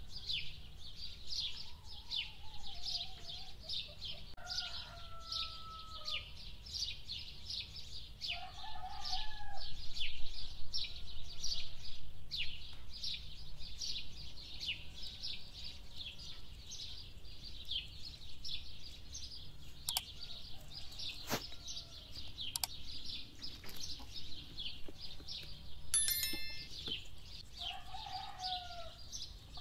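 A dense chorus of small birds chirping rapidly, with farmyard fowl calling over it a few times in drawn-out falling calls: near the start, about a third of the way in, and near the end. A few sharp taps come about two-thirds of the way through.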